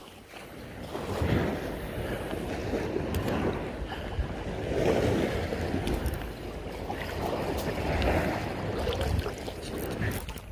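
Wind buffeting the microphone over waves washing at the shore, swelling and easing in a rough, uneven noise.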